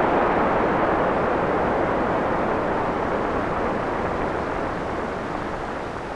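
Synthesized rainstorm from a VCV Rack modular patch: white noise shaped by filters into wind, rain and thunder, a dense steady rushing hiss that slowly dies away.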